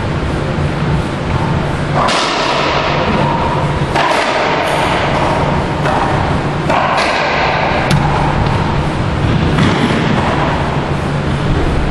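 Racquetball rally: about half a dozen sharp hits a second or two apart as the ball is struck by racquets and slams off the court walls, each one ringing out in the enclosed court, over a steady low hum.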